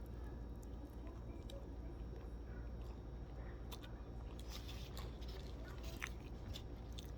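A person chewing a mouthful of chicken roti, with faint wet mouth clicks now and then.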